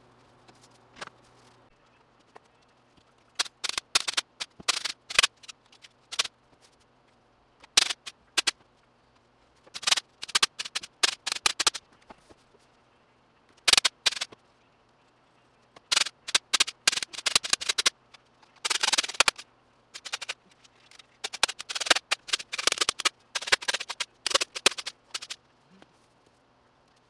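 Staple gun firing staples in quick runs of shots, with short pauses between runs, as fabric is stapled over the wooden frame of an acoustic panel.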